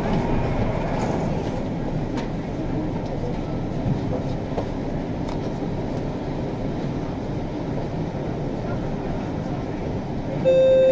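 VAL 208 rubber-tyred automated metro train standing at a station platform, with a steady hum and rumble of its equipment. Near the end, a loud steady beep with overtones starts: the door-closing warning signal.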